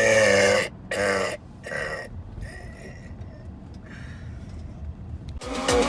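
A man belching: one long, loud burp, then two shorter ones within about two seconds. Music starts near the end.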